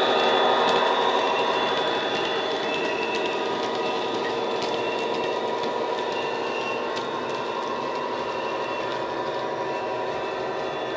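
Model Class 59 diesel's DCC sound decoder playing an EMD two-stroke diesel engine sound through the model's small speaker as the loco pulls away. It is slightly louder at first, then holds steady, with faint regular clicks from the wagons' wheels on the track.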